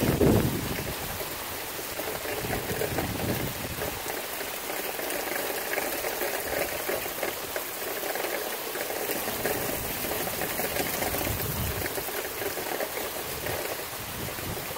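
Tropical-storm rain falling steadily, with wind gusts buffeting the microphone at the start and again about twelve seconds in.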